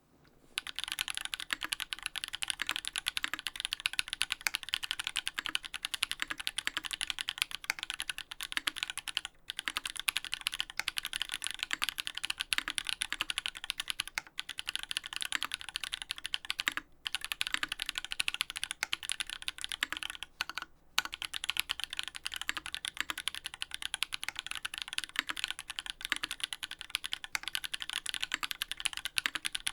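Fast, continuous typing on a Duck Orion V3 custom mechanical keyboard with Holy Panda tactile switches lubed with Tribosys 3204, mounted on an FR4 plate under GMK keycaps. The keystrokes come in a dense stream with four brief pauses.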